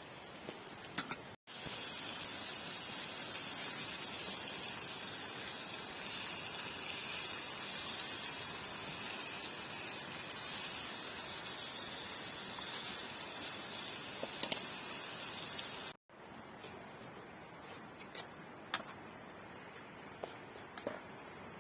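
Steady hiss of rain, cut off abruptly about a second in and again near the end by edits; after the second cut it is quieter, with scattered light ticks.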